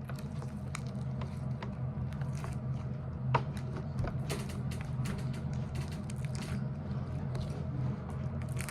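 Hands squeezing and kneading slime, making an irregular run of small sticky clicks and squelches.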